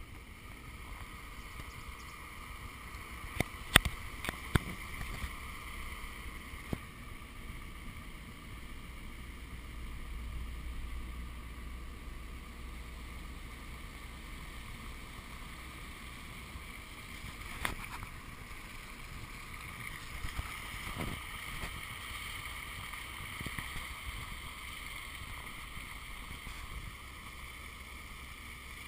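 Vehicle driving through a flooded gravel road, with a steady engine hum and water washing around the tyres, heard from a hood-mounted camera. A few sharp knocks about four seconds in and again a little past halfway.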